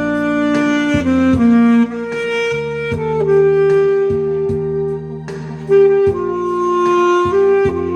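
Alto saxophone playing a slow melody of long held notes over a backing accompaniment; one note is held for about two seconds in the middle.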